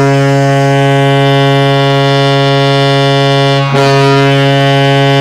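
Toronto Maple Leafs goal horn: a loud, steady, low horn blast that dips briefly about three and a half seconds in and then sounds on.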